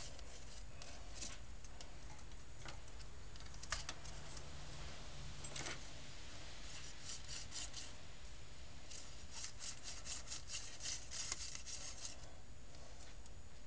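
Fingers twisting the metal shaft and balsa blade parts of a hand-built rubber-powered model helicopter: soft scratchy rubbing with a few light clicks, coming in quick runs in the second half.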